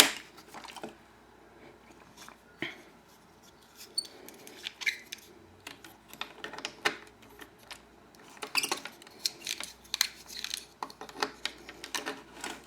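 Sporadic small clicks and taps of hard plastic toy parts being handled and fitted together while a Transformers G1 Blaster toy is reassembled, with a sharp click at the start and a busier run of clicks in the second half.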